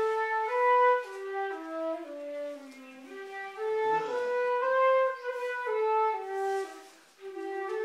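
Transverse wooden flute playing a slow melody of held notes that step up and down, with a brief pause near the end.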